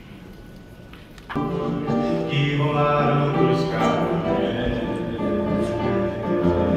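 Quiet hall murmur, then a small live band starts playing abruptly about a second in, with held notes and chords.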